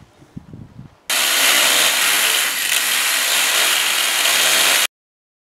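Chainsaw of a homemade chainsaw mortiser running and cutting a mortise slot into a spruce (white deal) beam. It starts suddenly about a second in, after a few soft knocks, and cuts off abruptly near the end.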